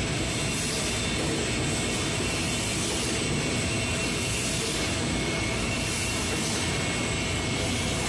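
Steady machinery noise of a chicken processing line, with conveyors and processing machines running continuously and a few faint constant whines over an even rushing din.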